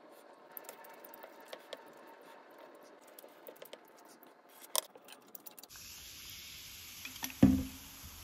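Wooden spoon scraping and clicking against a ceramic bowl of fried rice. About two-thirds of the way in, a steady hiss of cola fizzing in a glass takes over, and a single loud thump comes near the end.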